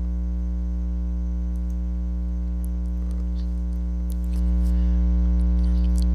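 Steady electrical mains hum with a stack of overtones, stepping up in loudness about four seconds in, with a few faint clicks.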